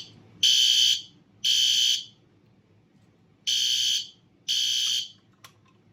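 Newly wired fire alarm sounding on its first test: two half-second blasts of a steady high-pitched tone, a pause of about a second and a half, then two more blasts.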